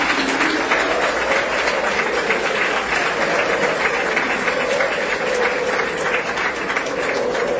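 A large stadium crowd of football supporters clapping together while singing a chant in unison; the clapping is dense and steady, the voices form one slowly wavering sung line.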